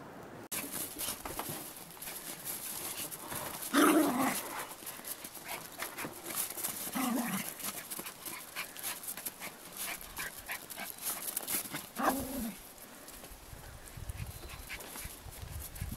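Small dogs barking playfully: three short barks about four, seven and twelve seconds in, the first the loudest, with scuffling noises between.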